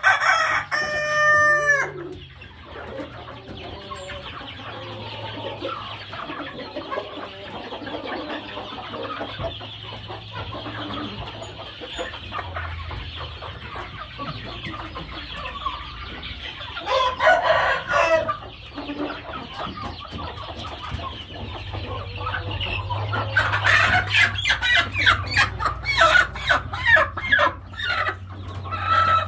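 A flock of chickens: a rooster crows right at the start, with hens and roosters clucking throughout and another loud call about seventeen seconds in. Near the end, rapid flapping and scuffling as two roosters fight.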